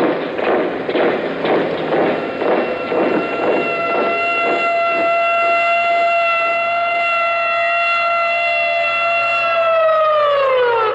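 A siren sounding one steady, held tone that swells in over a pulsing thud of about two beats a second, then winds down, falling in pitch near the end.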